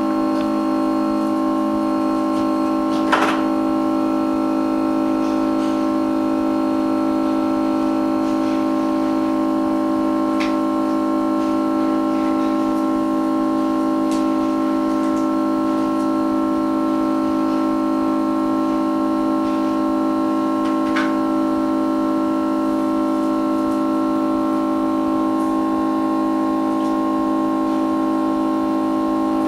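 Background music: a held keyboard chord that stays the same throughout, with a few faint clicks.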